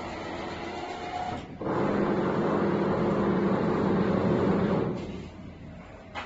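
Belt-driven XY linear slide running, its motors and belts moving the pick-up carriage: a steady hum with a thin whine for about a second and a half, then a louder run of about three seconds that fades out about five seconds in. A short click at the very end.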